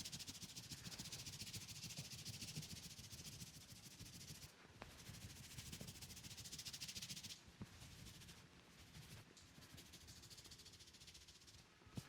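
Hands rubbing briskly over hair and scalp in a head massage: a soft, fast, hissing rustle that pauses briefly and stops about seven seconds in, leaving fainter rustling.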